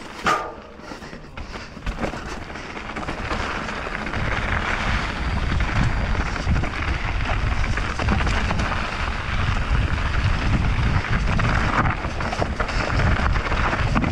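Mountain bike riding down a dirt trail: wind rushing over the camera microphone, with the tyres and frame rattling over the rough ground. A sharp knock just after the start, and the rush grows louder from about four seconds in.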